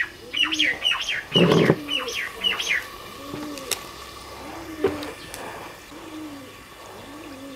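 A dove cooing over and over in low, soft arched notes, while another bird gives a quick series of high falling chirps during the first three seconds. A short loud rustling noise comes about a second and a half in.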